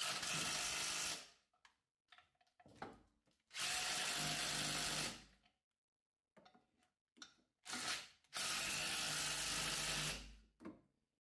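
Cordless power tool driving the valve cover bolts down, running in three bursts of one to two seconds each, with a few light clicks between bursts.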